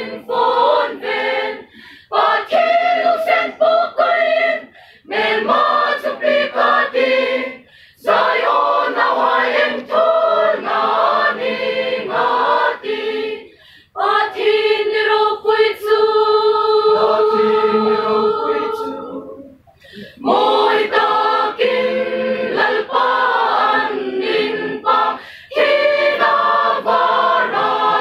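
Mixed choir of women and men singing, in phrases broken by short pauses, with one long held note around the middle.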